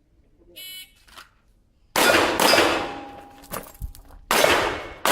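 A shot timer beeps once to start, and about a second later a Chiappa Rhino revolver fires: two shots half a second apart, then another about two seconds later and one more at the very end. Each shot echoes off the range, and struck steel targets ring after the shots.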